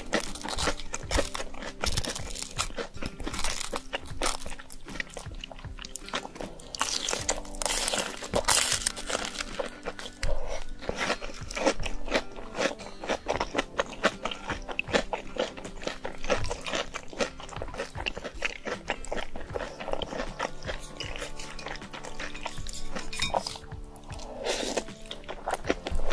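Close-miked mukbang eating sounds: a person crunching, biting and chewing through spicy instant noodles with shrimp, in quick irregular clicks, over background music.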